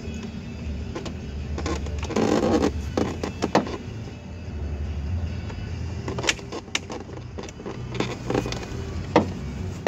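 A car's driver-door trim panel being worked into place by hand: rubbing and scraping against the door, with scattered sharp clicks, a few louder ones in the second half.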